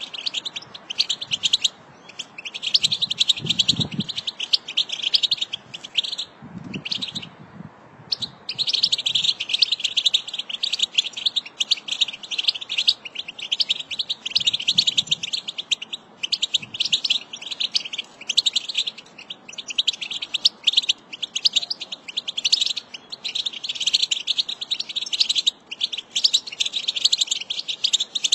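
American goldfinch singing: a long, rambling run of rapid, high twittering chirps and warbles. It is nearly continuous, breaking off briefly about seven seconds in.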